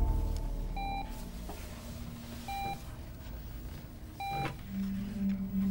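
Bedside patient monitor beeping: a short, single-pitched beep about every 1.7 seconds, three times, the regular pulse tone of a heart monitor. A music tail fades out at the start, and a low steady hum comes in near the end.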